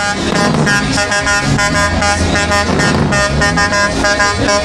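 Truck air horns sounding in short, repeated blasts over a steady low rumble.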